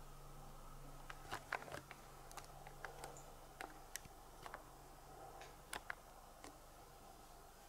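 Cat lapping water from a toilet bowl: a run of faint, irregular little clicks, starting about a second in, over a low steady hum.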